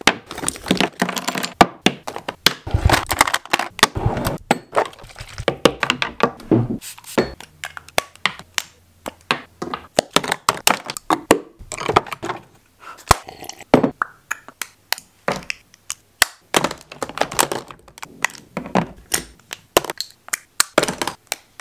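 Irregular clicks, taps and knocks of makeup brushes, compacts and containers being handled and set down on a wooden desk.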